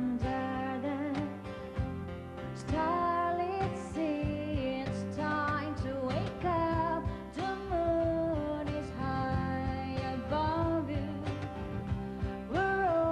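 A pop song playing: a sung melody over a light instrumental accompaniment.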